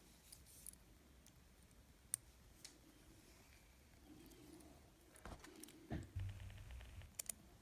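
Faint, sparse clicks and scrapes of a small screwdriver tightening screws into an N-scale model locomotive's chassis, with a brief low rattle about six seconds in.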